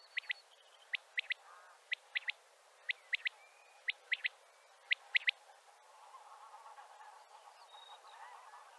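Male common quail singing: six quick three-note phrases, about one a second. About six seconds in, a lower, rougher chattering sound takes over.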